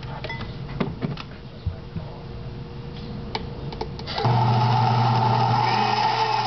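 Countertop blender with a glass jar switching on about four seconds in and running at a steady, loud hum as it blends fruit and juice into a smoothie. Before that, a few light clicks and knocks.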